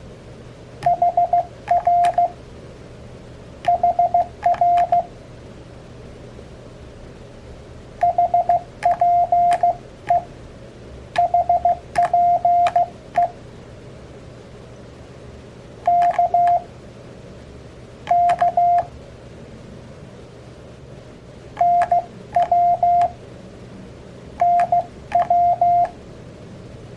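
Morse code (CW) sidetone from an Elecraft KX3 transceiver keyed with a KXPD3 paddle: a single tone of about 700 Hz sent in short groups of dots and dashes, each group a CW abbreviation. There are about eight groups, with pauses of one to three seconds between them.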